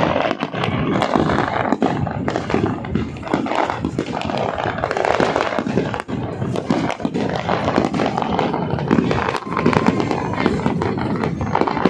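Fireworks going off in a dense, continuous barrage: many sharp bangs and crackles following close on one another.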